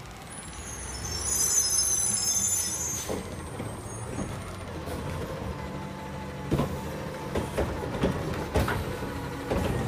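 Front-loading garbage truck's diesel engine running, with a hiss of air in the first couple of seconds and several sharp knocks in the second half.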